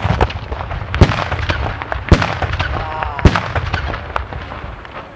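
Black-powder salute guns (Böller) firing a ragged volley: a fast, irregular run of sharp bangs, some overlapping, with a low rumble of echo between them and the loudest bangs near the start and about a second and three seconds in.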